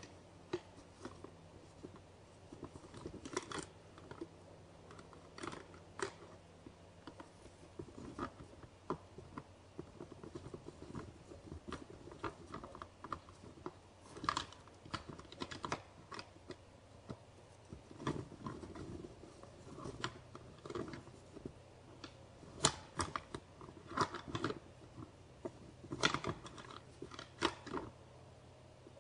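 Two young whitetail bucks sparring in snow: irregular light clicks, knocks and crunches as they butt heads and shuffle, busiest and loudest in the second half. A faint steady low hum runs underneath.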